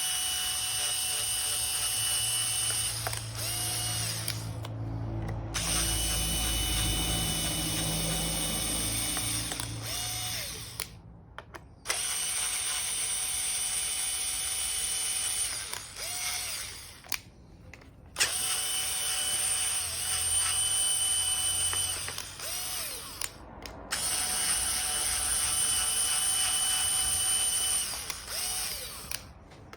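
Cordless drill-driver turning the cover plate screws of a glass-to-glass soft-close gate hinge. It runs in five stretches of several seconds each, with short pauses between.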